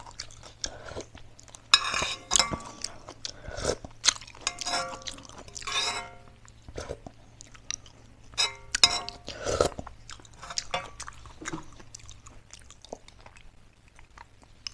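Mouth sounds of someone eating noodle soup: spoonfuls of broth slurped and chewed in several short spells, with a metal spoon clinking against an aluminium pan.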